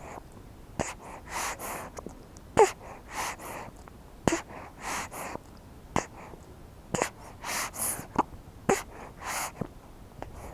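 Baby breastfeeding: sharp sucking clicks about once a second, mixed with short breathy puffs of breath and swallowing.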